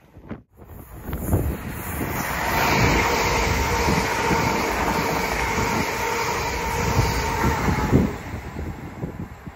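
Two coupled Class 350 Desiro electric multiple units passing through a station: a rumble of wheels on rail that builds, with a steady whine over it, then falls away after about eight seconds.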